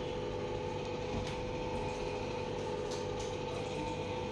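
Electric motor of an elbow CPM (continuous passive motion) machine running with a steady hum as it slowly raises the strapped forearm toward its 50-degree flexion limit, with a few faint ticks.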